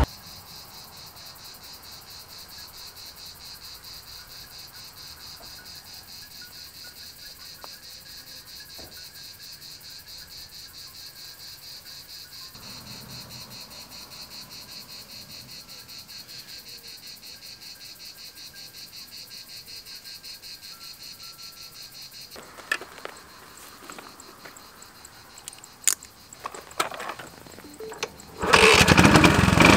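Insects chirring in a steady, finely pulsing chorus. Near the end come a few sharp clicks and knocks, then a sudden loud burst of scooter engine and wind noise.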